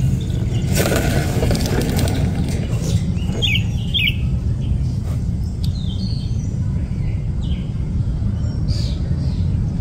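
Small birds chirping, with a few short chirps about three and four seconds in, over a steady low rumble; a brief rustling noise about a second in.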